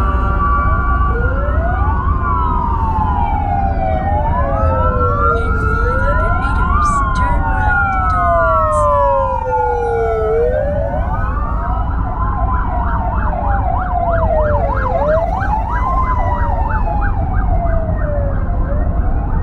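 Emergency vehicle sirens, at least two overlapping, wailing slowly up and down. Past the middle they switch to a fast yelp for several seconds. Underneath is the low, steady rumble of a moving car, a 1997 Daewoo Leganza 1.8 DOHC automatic.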